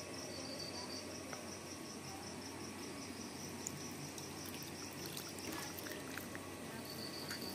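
Water sloshing and trickling as a hand stirs a tub of catfish fry, with small splashy clicks. A high, rapidly pulsing insect chirp stops about halfway through and comes back near the end.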